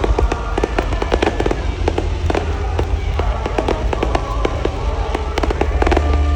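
Fireworks display: a dense, irregular stream of sharp bangs and crackles from bursting aerial shells. Music with steady held notes plays underneath.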